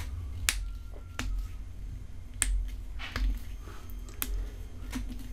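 About six sharp clicks or taps at irregular intervals, over a low steady hum.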